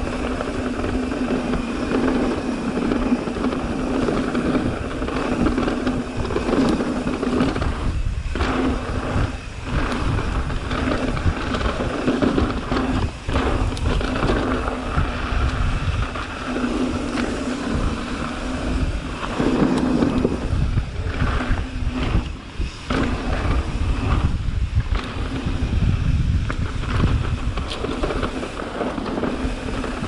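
Mountain bike riding down a dirt jump trail: wind buffeting the camera microphone over the rumble of tyres on dirt and the bike's rattle, with brief dips in level now and then.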